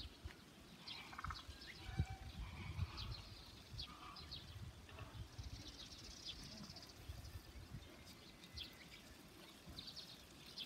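Faint animal calls: scattered short, high chirps and a brief quavering call about a second in, over low rumbles.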